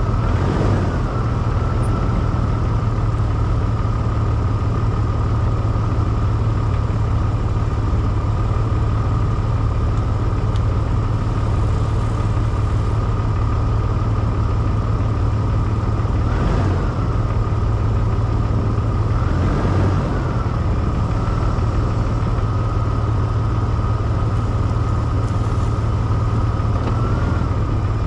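Off-road vehicle engine and drivetrain running steadily on a snowy trail, with a strong low drone and a constant high whine that swells slightly a few times.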